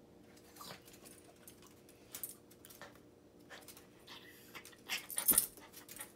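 A Yorkshire terrier begging for food makes short, breathy dog sounds, with scattered clicks. A sharp knock about five seconds in is the loudest moment.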